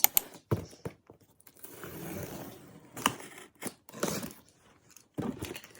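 Packaging being handled: several sharp clicks and knocks with scraping and rustling in between.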